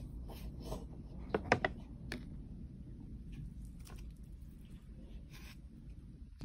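Small handling noises at a table: a few soft clicks and crinkles, the loudest cluster about one and a half seconds in, over a low steady room rumble.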